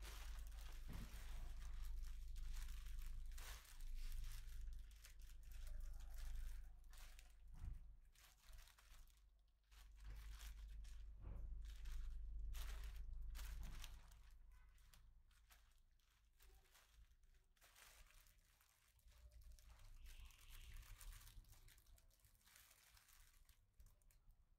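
Clear plastic bag crinkling and rustling as hands handle and rummage through it. It is loudest over the first half and quieter after about 14 seconds.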